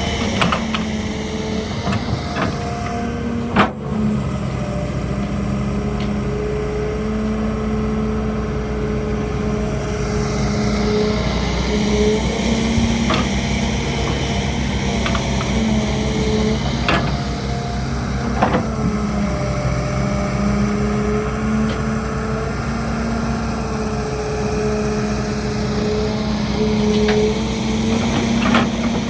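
Heavy diesel engine of an excavator running steadily under working load, with several sharp knocks scattered through, the loudest about three and a half seconds in.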